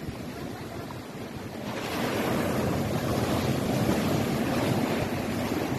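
Rough, wind-driven sea surf breaking against a rocky shore: a wave crashes a little under two seconds in and its hissing rush of foam carries on, over wind buffeting the microphone.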